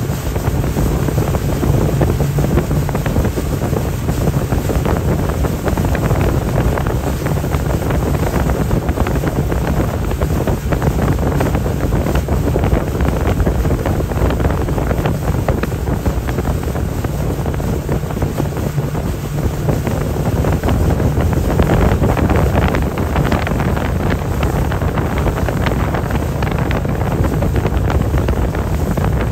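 Wind buffeting the microphone over a steady drone of motorboat engines and rushing water.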